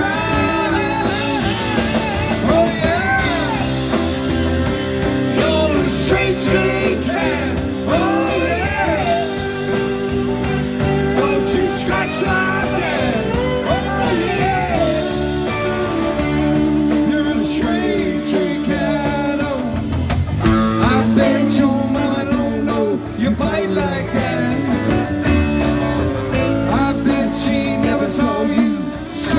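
Live rock band playing: electric guitars, bass guitar and a drum kit.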